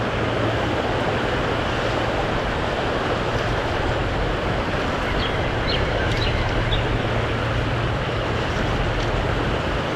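Steady rush of a fast-flowing river running high.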